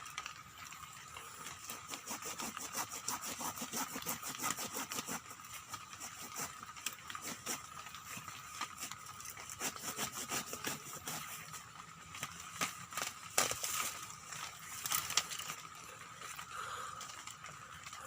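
A bamboo stalk being cut by hand with a blade: a long run of quick, sharp strokes several times a second, with a few louder strokes near the end.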